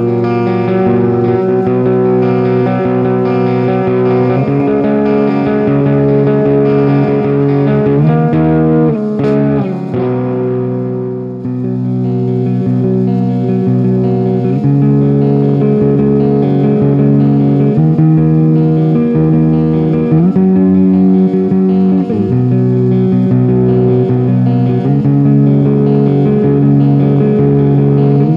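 Electric guitar through Ibanez STD C1/C2 passive humbuckers, played with a clean tone: chords ringing out and changing every second or two, with a slide in pitch and a short sharp noise about nine seconds in.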